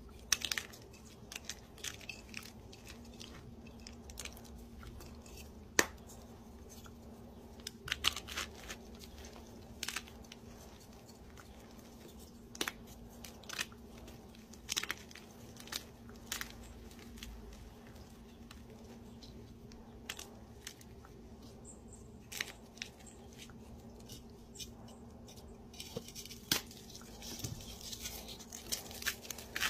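Hands crushing crunchy dyed blocks: irregular sharp crunches and crumbling snaps as the blocks break into powder, coming thicker near the end, over a faint steady hum.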